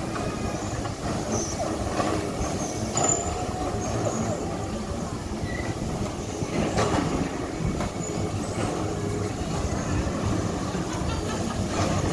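Electric bumper cars with inflatable rubber rings driving around the rink: a steady rumble and whir, with one sharp knock about seven seconds in.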